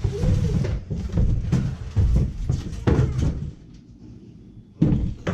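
Handling noise from unboxing a lawnmower: parts and packaging knocking and rustling in irregular bumps, a brief lull, then one sharp thump near the end.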